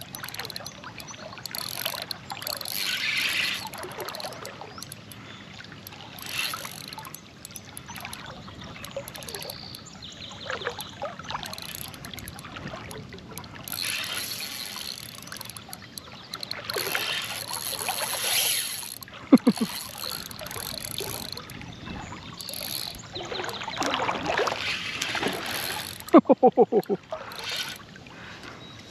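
River water trickling and splashing around a wading angler, with irregular swishes. A quick run of sharp ticks comes about two-thirds of the way in and again, louder, near the end.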